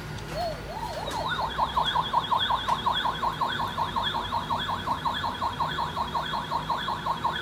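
Electronic sound effect from a battery-powered Ryan's World toy spaceship: a fast, siren-like run of rising chirps, about five a second, over a high warbling trill. It starts with a couple of slower chirps.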